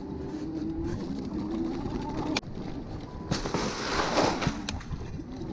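Bicycle ridden over bumpy ground. A wavering, sliding tone runs for the first few seconds, and from about three seconds in a loud rush of jolting noise takes over.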